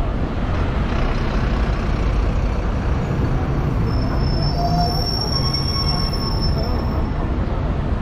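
Steady rumble of busy city vehicle traffic. About halfway through, a high-pitched squeal, typical of braking wheels, rises over it and lasts some three seconds.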